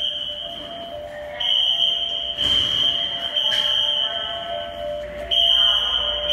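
A school fire alarm system sounding after a manual pull station has been activated. A loud, steady, high-pitched alarm tone cuts out for about a second near the start, then again briefly around five seconds in, while lower-pitched tones step along underneath.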